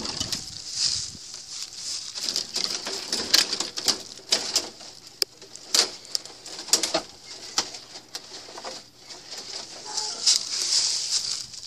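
Dry sticks and twigs being gathered by hand close to the microphone: steady rustling with many irregular sharp cracks and clicks.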